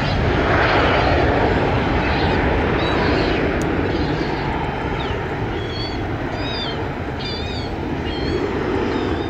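Bombardier Global 5000 business jet's twin Rolls-Royce BR710 turbofans at takeoff power as it climbs away, a dense, steady rumble of jet noise. From the middle on, short repeated bird chirps sound over it.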